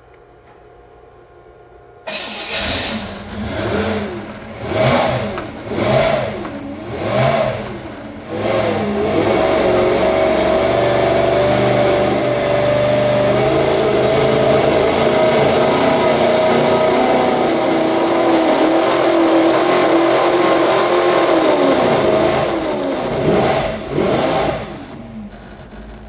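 Chevrolet small-block V8 crate engine (a ZZ4 350 with a hot cam and Fast Burn heads) running on an engine dynamometer. About two seconds in it comes in loud and is blipped about five times, then it holds a long loaded dyno pull of around thirteen seconds. It then drops back, gives one last short blip and winds down near the end: a power run that gave 448 horsepower.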